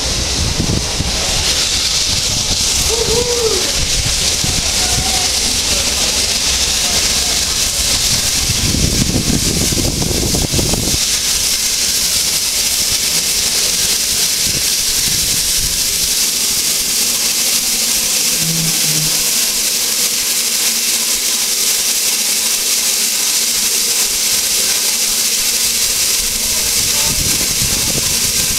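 Steam locomotive Tornado, a three-cylinder A1 Pacific, running slowly through the station with a loud, steady hiss of escaping steam, over a low rumble of the train that fades about eleven seconds in.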